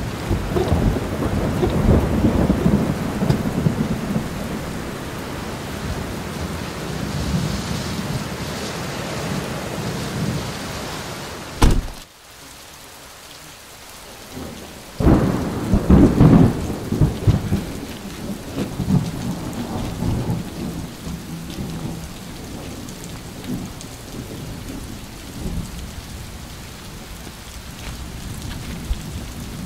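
Thunder rumbling over rain. A sharp crack comes near the middle, the sound drops away suddenly, and a few seconds later another rumble swells up and slowly fades.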